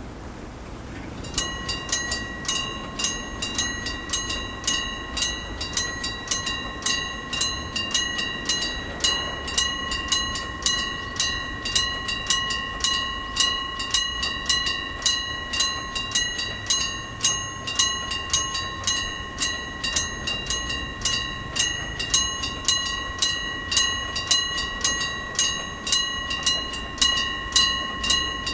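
Old-style electric bell of a railway level crossing signal starting about a second in and ringing on without a break: a hammer striking the bell in quick, even succession, its ringing tone held between strikes and the loudness pulsing about twice a second.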